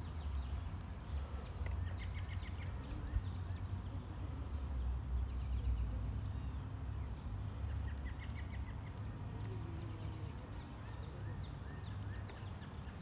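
Wind rumbling on the microphone, with faint bird calls coming through now and then as short quick runs of chirps.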